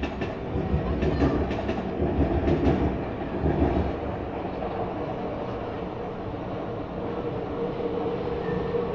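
Tokyu electric commuter train passing close by, its wheels clacking over rail joints in quick strokes for the first few seconds, then running on with a steadier rumble. A steady hum joins in near the end.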